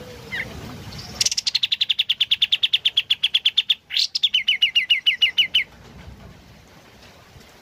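Kapas tembak bulbul singing a loud, fast rattling trill of about ten clipped notes a second for over two seconds. A short upward sweep follows, then a second, slightly slower run of down-slurred notes.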